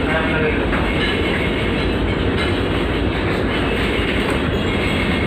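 A ship's machinery running: a loud, steady, deep rumble with a hiss above it that never lets up.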